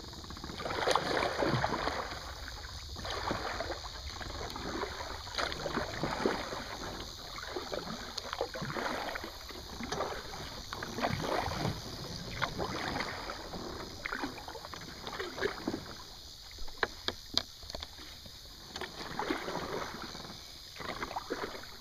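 Kayak paddle strokes dipping and splashing in the water, one swish every second or two, with a few sharp knocks in between.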